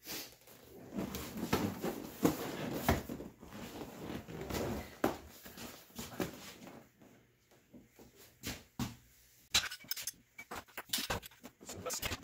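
Rustling and scraping as truck seat parts are handled and fitted back together, then a quick run of small metallic clinks and knocks in the last few seconds.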